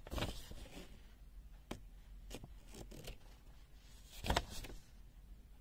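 Faint rustling and crackling of a paper instruction sheet being handled, with a few short crackles and a louder rustle about four seconds in.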